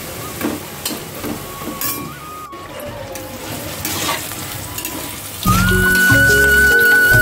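Fritters and pointed-gourd (potol) slices frying in hot oil in a pan, a steady sizzle with a few clicks. About five and a half seconds in, louder background music with a high held melody and a bass line starts and takes over.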